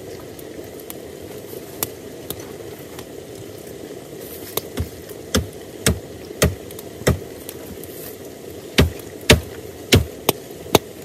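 Wood cooking fire crackling over a steady low rumble, with sharp irregular pops that come more and more often from about halfway through.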